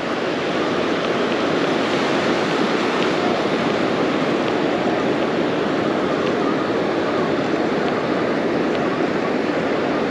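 Steady, even rush of ocean surf washing up a sandy beach.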